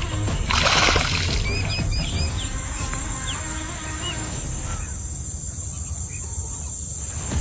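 Small birds chirping in a quick run of short repeated notes over a steady high insect drone, with a brief rush of noise about a second in.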